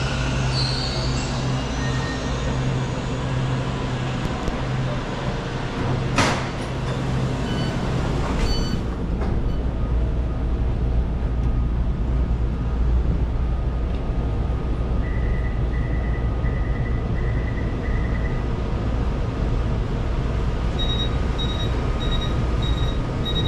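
Taichung MRT Green Line metro train standing at the platform with its doors open, its equipment humming steadily. A sharp knock comes about six seconds in and a short run of about five beeps comes midway. Near the end a rapid high beeping starts: the door-closing warning.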